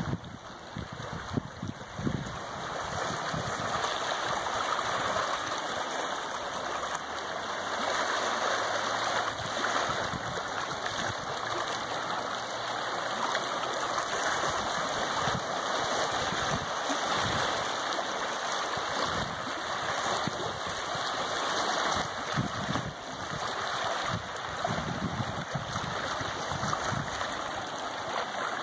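Small wind-driven waves lapping and splashing against rocks along a lake shore, a steady wash of water with irregular low rumbles.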